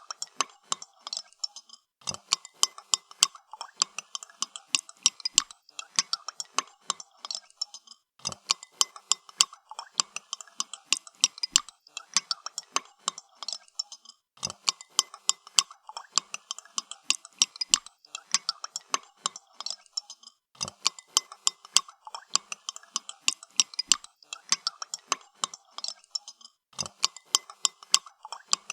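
Spoon stirring in a cup of coffee, clinking quickly and steadily against the sides of the cup.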